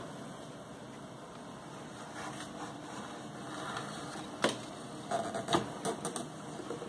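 Handling knocks and clicks of a Colerson tabletop radio's cabinet as it is gripped and turned around on a table: one sharp knock about two-thirds through, then a quick run of smaller knocks, over a faint steady hiss.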